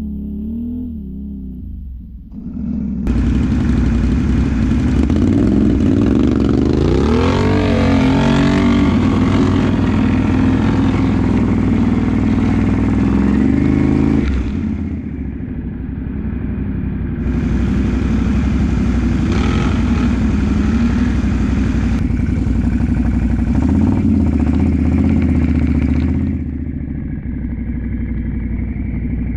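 ATV engine running under throttle. It comes up hard about three seconds in, with the revs rising and falling. It eases off for a couple of seconds about halfway, pulls again, and drops to a lower, steadier run near the end.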